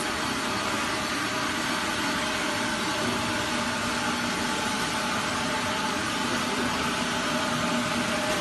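Water-jug washing and filling machine running: a steady, loud hiss of spray or air with a faint machine hum under it, which stops abruptly near the end.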